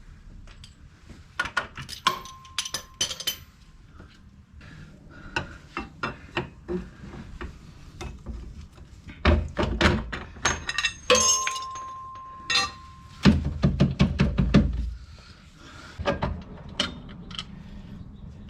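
Steel hand tools and suspension hardware clinking and knocking while a trailing-arm pivot bolt is worked loose, with two short metallic rings and a run of heavier thumps in the middle.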